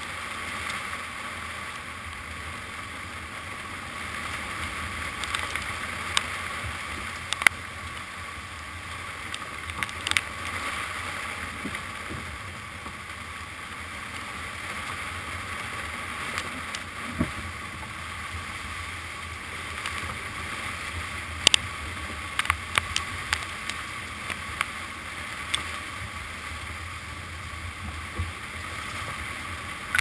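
Steady rush of strong wind and sea around a sailing yacht in heavy weather, with scattered sharp ticks of spray striking the camera.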